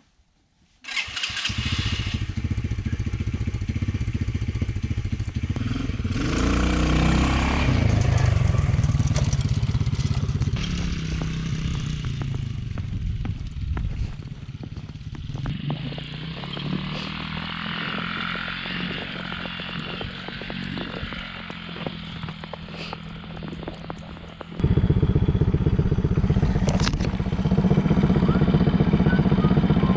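Small 110cc single-cylinder four-stroke ATV engine running and being revved while riding in deep snow. The pitch rises as it revs up a few seconds in, then eases, and near the end it suddenly gets much louder.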